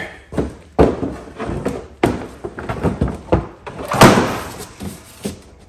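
Plastic hood of a John Deere D130 lawn tractor being test-fitted on newly made pivot pegs and lowered shut: several knocks and clunks, the loudest a slam about four seconds in.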